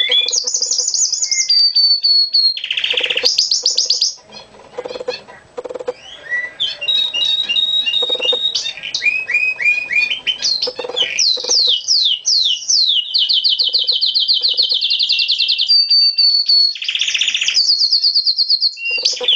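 Pet canary singing a long song of rapid trills, fast repeated notes and high held whistles. It goes briefly quieter about four seconds in, then picks up again.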